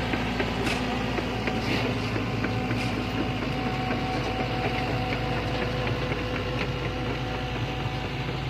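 Sany excavator's diesel engine running steadily, with a few faint clicks in the first three seconds.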